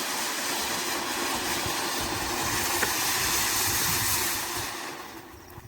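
A ground firework fountain burning with a steady hiss as it sprays sparks, dying away near the end as it burns out.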